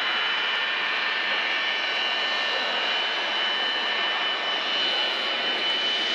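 Military jet engines running steadily as aircraft taxi: a constant high whine at several pitches over an even rush of noise.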